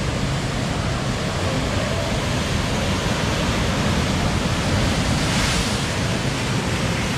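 Big ocean swells breaking against a rocky shore and washing into white water: a steady, loud rush of surf that swells a little about five seconds in.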